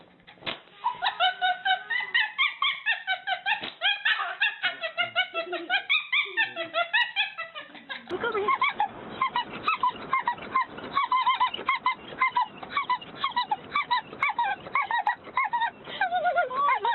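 Several small animals calling over one another in rapid, short, high-pitched yips and squeaks; about halfway through the chorus becomes denser, with clicking underneath.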